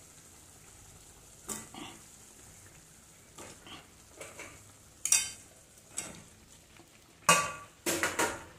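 Slotted metal ladle scraping and stirring boiled gooseberry pieces into a hot spiced masala in a kadai: a series of separate scraping strokes, the loudest two near the end, over a faint sizzle from the pan.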